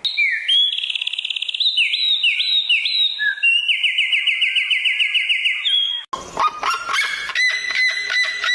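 Songbird singing in clear whistles that slide up and down, with fast trills in between. About six seconds in, it cuts abruptly to a different animal giving a quick run of repeated calls.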